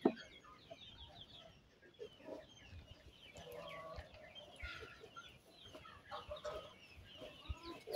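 Faint clucking of chickens, with many short scattered chirping calls.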